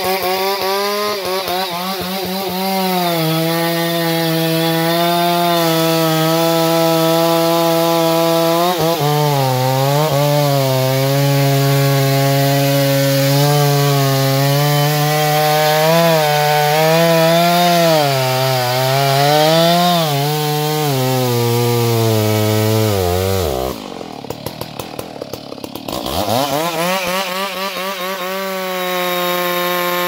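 Two-stroke chainsaw cutting into a large standing tree trunk to fell it, the engine's pitch rising and sagging as it works under load. About three-quarters of the way through, the throttle is let off and the engine drops to a low idle for a couple of seconds, then revs back up.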